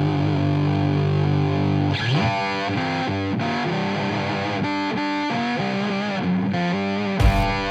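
Background music: distorted electric guitar holding a chord, then playing a line of changing notes, with drums and bass coming in near the end.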